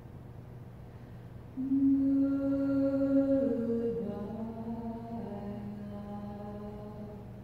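Slow chanting: long held vocal notes over a low steady drone. A louder note comes in about a second and a half in and steps down in pitch, then other voices overlap in held tones.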